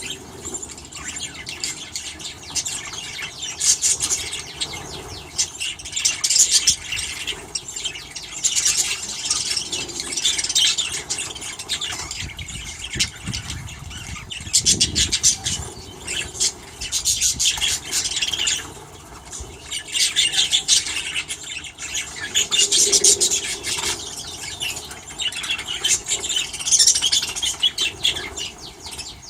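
A flock of aviary birds chattering, with many high calls overlapping in bursts and brief lulls between them.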